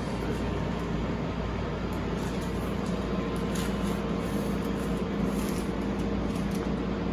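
Steady low room hum with a few faint steady tones in it, and a few faint short ticks or rustles around the middle.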